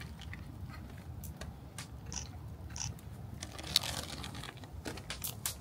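Irregular faint crinkling of a plastic turkey wrapper and soft squishing as chicken rice is pushed by hand into the cavity of a raw turkey, with scattered small clicks.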